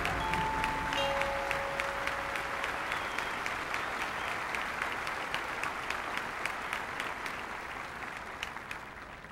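Stadium crowd applauding at the end of a drum and bugle corps performance, with the last held notes of the music dying away in the first couple of seconds. The applause slowly fades.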